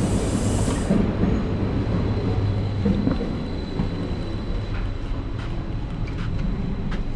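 Steady hum and rumble of a standing SBB passenger train, heard from its doorway and vestibule. A high hiss cuts off about a second in, and a few light clicks and knocks follow.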